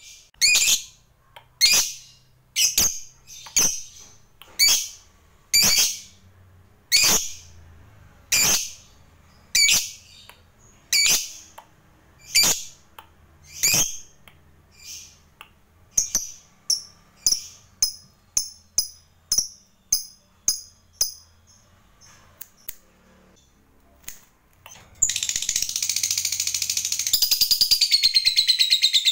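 A lovebird giving sharp, high-pitched single calls about once a second, quickening to about two a second and growing fainter, then after a short pause breaking into a long unbroken rapid chatter, the "ngekek panjang" long trill that lovebird fanciers prize.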